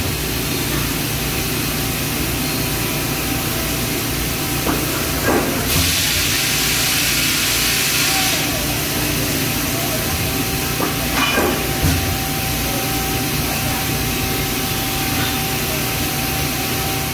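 Samsung 6TL CNC lathe's hinged-steel-belt chip conveyor running steadily under a constant machine hum with a faint whine, with an occasional clank now and then. A hiss sounds for about two seconds, some six seconds in.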